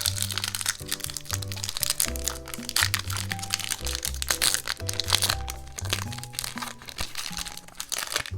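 Foil Pokémon booster pack wrappers crinkling and crackling as they are handled and torn open, with many quick sharp crackles over light background music.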